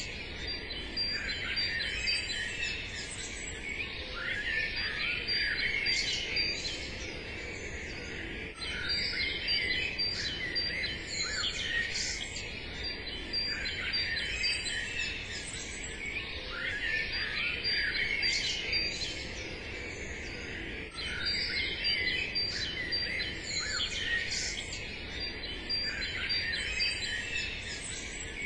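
Songbirds chirping and singing, a dense chorus of many overlapping short calls and trills.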